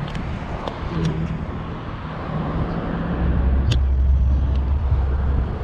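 Road traffic noise with a motor vehicle's engine running close by, its low hum growing louder about halfway through.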